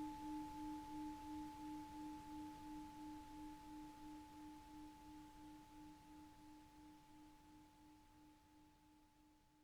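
Tibetan singing bowl's ring dying away: a low tone wavering about three times a second with a fainter higher overtone, fading steadily toward silence.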